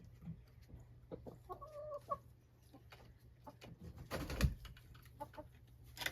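Domestic hen giving a short clucking call, among scattered knocks, with a louder thump about four seconds in.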